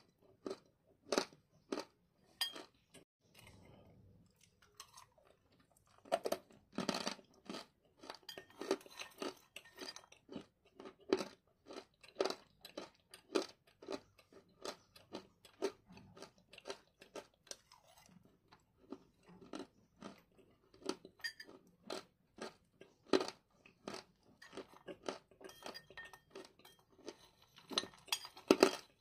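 Crunching and chewing of hard chunks of edible clay: sharp crunches come several times a second, with a short lull a few seconds in and another about two-thirds through.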